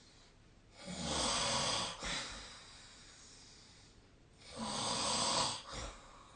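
A person snoring in sleep: two loud, rasping snores about four seconds apart, each lasting about a second and followed by a brief second puff of breath.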